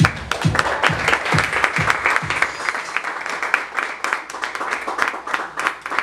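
Audience clapping over background music with a steady low drum beat about twice a second. The beat drops out after about two seconds while the clapping goes on.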